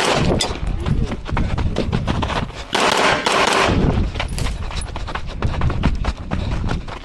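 Handgun fire during a practical shooting stage: rapid strings of pistol shots, several a second, with short breaks between strings.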